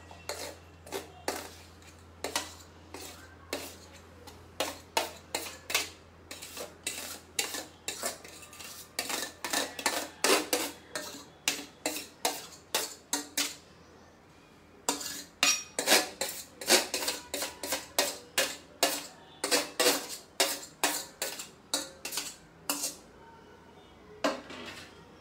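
A metal spoon or fork repeatedly clinking and scraping against a plate while mashed roasted eggplant is worked and scooped, about two strikes a second, with a short pause a little past halfway.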